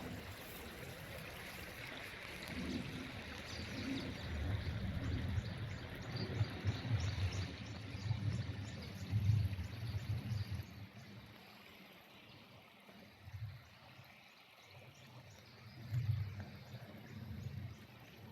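Outdoor ambience dominated by wind gusting on the microphone, in irregular low rumbles that fade about two thirds of the way in and return briefly near the end, with faint high ticking over a steady hiss.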